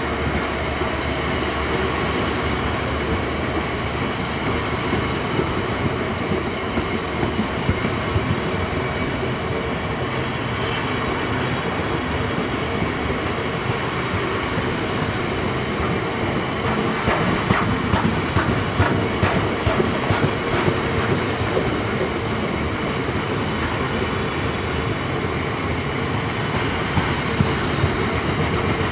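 Freight train of bogie coal hopper wagons rolling past, a steady rumble of wheels on rail. A run of sharp wheel clicks and clacks comes a little over halfway through.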